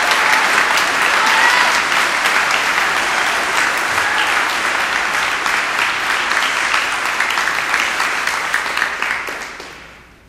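A congregation applauding with steady, dense clapping from many hands, which dies away near the end.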